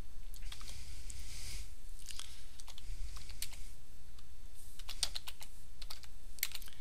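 Computer keyboard typing: irregular clusters of keystroke clicks, with a steady low hum underneath.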